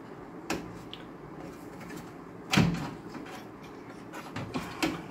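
Knocks and light clatter of a desktop motherboard being shifted against its metal chassis, three short knocks with the loudest about halfway through.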